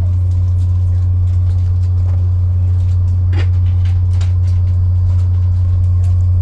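Steady low engine drone heard from inside a vehicle, unchanging throughout, with a few faint clicks in the middle.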